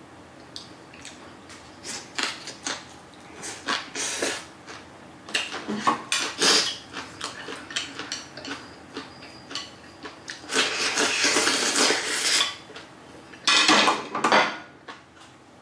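Eating utensils clinking and scraping against dishes in a run of sharp clicks, with a few longer noisy scrapes, the longest about two seconds in the second half.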